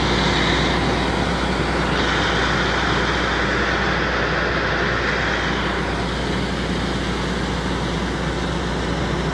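Farm machinery engine running steadily, with a constant low hum under a dense mechanical noise.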